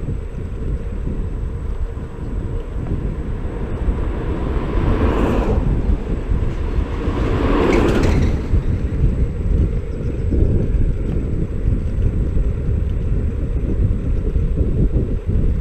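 Steady low rumble of wind buffeting the microphone and tyres rolling on asphalt, recorded while riding a Xiaomi Mi Scooter Pro 2 electric scooter. There are two louder swells about five and eight seconds in.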